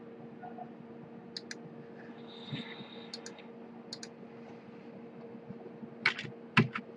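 Computer mouse and keyboard clicks: a few soft paired clicks, then three louder ones near the end, over a faint steady hum.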